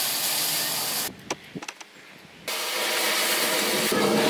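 Street-food kitchen cooking noise: a loud, steady hiss. About a second in it cuts off to a quieter stretch with a few light clicks and knocks, and the hiss comes back about two and a half seconds in.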